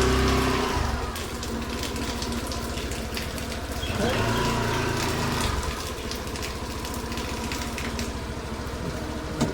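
Steady low mechanical hum of a running motor, swelling louder twice.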